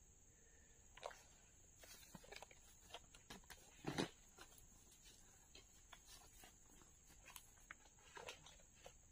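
Faint footsteps of rubber boots on dry leaf litter and the handling of a backpack brush cutter with its engine off: scattered rustles and light knocks, the loudest a thump about four seconds in.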